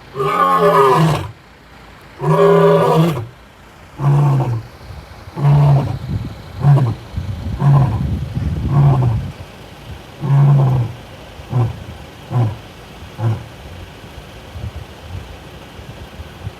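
Male lion roaring: two long, full roars, then a run of shorter grunting roars that come quicker, shorter and fainter until they die away about three-quarters of the way through.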